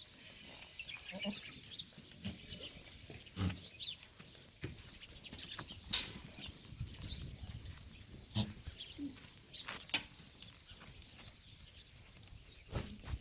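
Goats calling now and then in a pen, with several sharp knocks and clatters, a few seconds apart, standing out above them.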